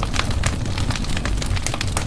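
Wood fire burning in a fireplace: a steady low rumble of flames with many irregular sharp crackles and pops.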